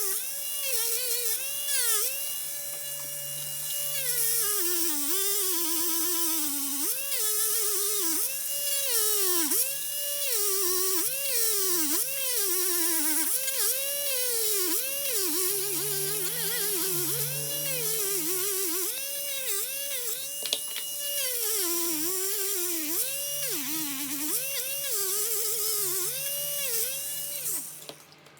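Small high-speed electric rotary tool running, its pitch sagging each time it is pressed into the work and climbing back when eased off, about once a second, until it stops just before the end.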